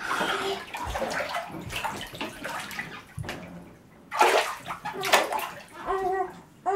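Bathwater sloshing and splashing in a corner tub as children move and duck under the surface, with two louder splashes about four and five seconds in.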